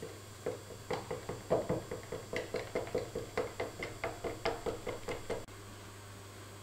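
A mixing stick knocking rapidly against the sides of a plastic measuring jug while stirring black-tinted epoxy resin, about four to five knocks a second, stopping abruptly near the end.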